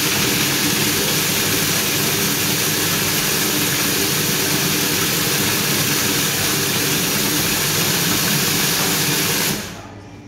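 Robot Coupe commercial food processor motor running at full speed, grinding toasted sourdough bread into breadcrumbs: a loud, steady whir that cuts off suddenly near the end.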